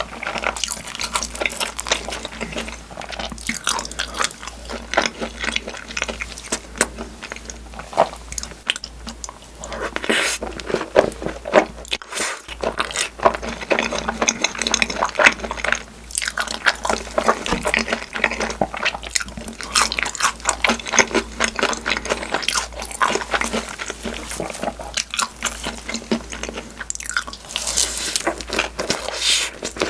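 Close-miked chewing and biting of takoyaki (octopus balls), with dense, irregular mouth clicks and smacks and a brief pause or two.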